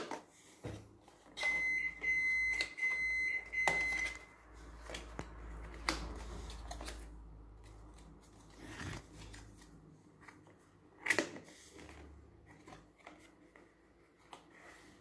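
Handmade paper scrapbook card being handled: flaps lifted and pages turned, with soft paper rustles and a sharp tap about eleven seconds in. From about one and a half to four seconds in, a run of high electronic beeps sounds, roughly two a second.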